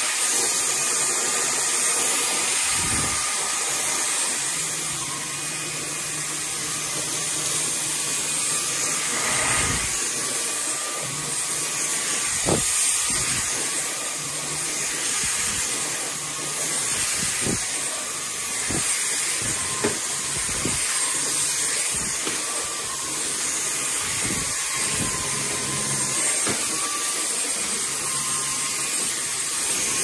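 BuTure VAC cordless stick vacuum running steadily, a whooshing motor hiss with a steady whine, as its floor head is pushed across a hard floor. Short sharp clicks come now and then.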